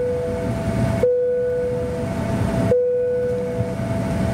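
Cabin noise inside a CRJ700 jet on the ground with its engines running: a steady low rumble under a thin, steady whine. A lower hum cuts in sharply twice, each time for about a second.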